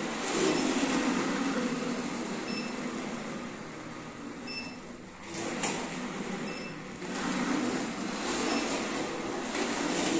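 Hard plastic wheels of a ride-on toy car rolling and rumbling over a polished hard floor, dying away about halfway through and starting up again a couple of seconds later, with a click in the pause. A faint short beep recurs about every two seconds.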